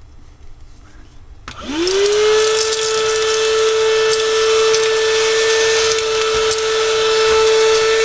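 Afbest cordless handheld vacuum cleaner switched on about a second and a half in, its motor whine rising quickly to a steady hum with air rushing through the narrow crevice nozzle. Small screws and connectors tick now and then as they are sucked up.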